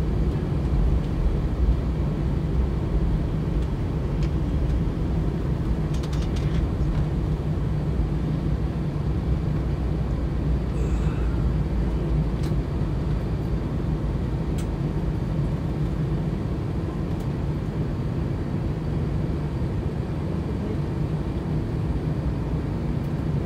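Steady low rumble of a jet airliner's engines and cabin air heard inside the cabin as it taxis to the gate, with a few faint clicks.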